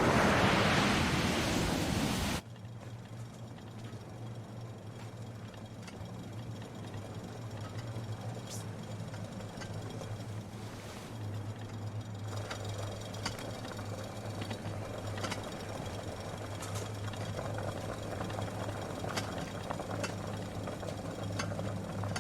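A loud rushing roar cuts off abruptly about two seconds in. It leaves a steady low hum with faint scattered clicks and ticks, which grows a little louder later on.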